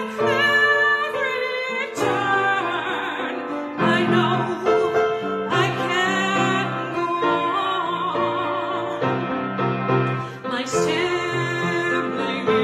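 A hymn sung by a trained voice with vibrato over piano accompaniment.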